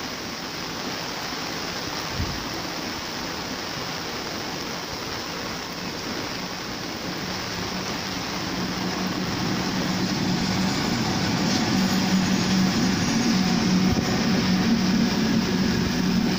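Steady hiss of heavy rain over the rumble of passenger coaches rolling past, with one brief knock about two seconds in. In the second half a steady low hum from twin WAG-7 electric banker locomotives, pushing at the rear of the train, grows louder as they approach.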